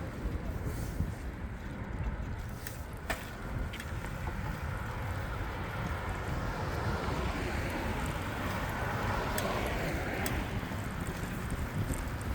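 Steady wind rumble on the microphone and rolling noise from a bicycle ridden along a city cycle path, with a few sharp clicks about three seconds in and fainter ticks later.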